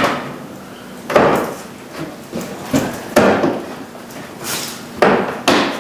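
Hard plastic bumper cover and trim closeouts of a Honda Odyssey knocking and clunking as they are forced into place by hand: several separate knocks about a second apart.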